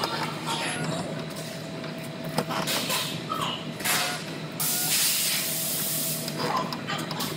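Pneumatic spot welder with copper electrode arms clamping and releasing on a car body's sheet-metal seam: short hisses of compressed air from the gun, the longest lasting about a second and a half, over a steady low hum.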